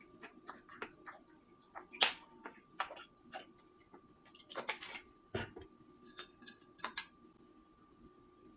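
Scattered light clicks and taps from handling a plastic sports-drink bottle and a small glass jigger while measuring and pouring a drink, with a sharper knock about two seconds in and another about five and a half seconds in.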